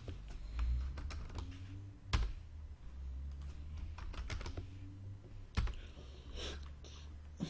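Irregular typing and clicking on a computer keyboard, with two louder knocks, one about two seconds in and one near six seconds.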